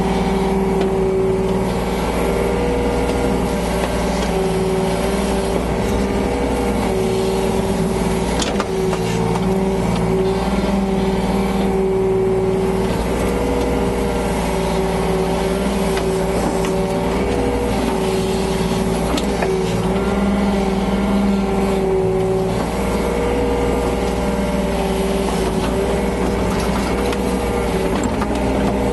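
Yanmar BV25 excavator's diesel engine running steadily under work, its note dipping and recovering again and again as the hydraulics take load while it digs and loads sand.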